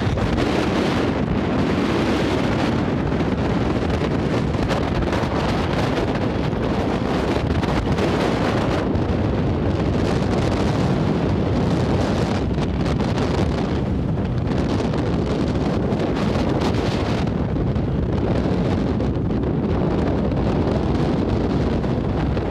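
Steady rushing wind buffeting the microphone, with a firefighting helicopter's rotor and engine running overhead beneath it.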